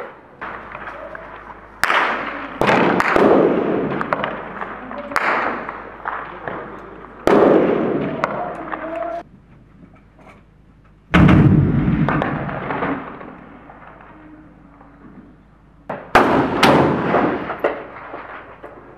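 Heavy gunfire and explosions: about six loud sudden blasts, each with a long rolling echo that fades over a few seconds, and a few lighter cracks in between.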